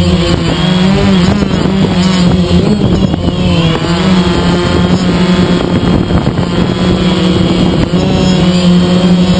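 DJI Phantom quadcopter's motors and propellers whining loudly in flight, heard from a camera on the drone's own frame. The steady whine rises and falls in pitch now and then as the drone manoeuvres.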